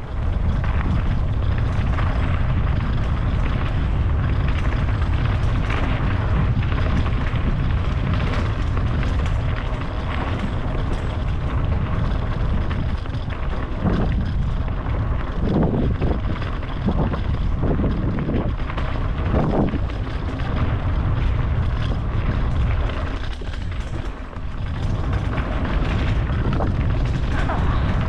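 Steady, loud low rumble of wind buffeting the microphone while a vehicle runs underneath.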